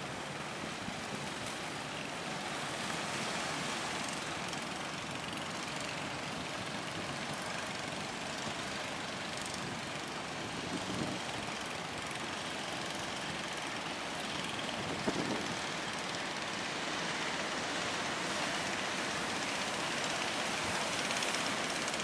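Steady rush of surf and churning sea water, with a couple of brief low bumps about 11 and 15 seconds in.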